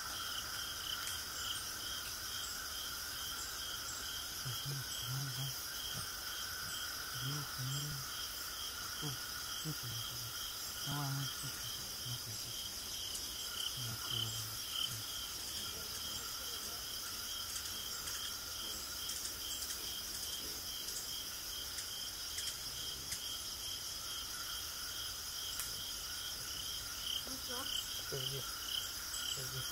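A steady evening chorus of chirping insects: several high, continuous trills, one of them pulsing at an even, fast beat.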